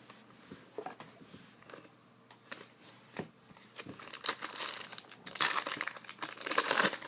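Crinkling and tearing of a trading-card pack wrapper being handled and opened. A few light clicks come first, then dense crinkling from about four seconds in.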